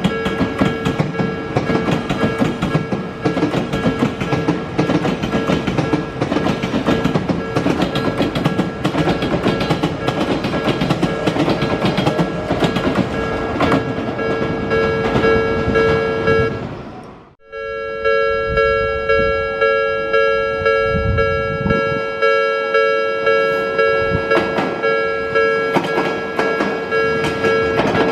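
Japanese level-crossing alarm ringing in a steady repeating beat while an Odakyu train passes, its wheels clicking over the rail joints. The sound cuts out abruptly about two thirds of the way in, and the alarm then carries on with much less train noise.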